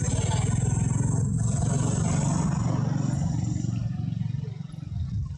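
An engine running with a steady low rumble that fades away after about four seconds. A steady high buzz runs over it and stops at about the same time.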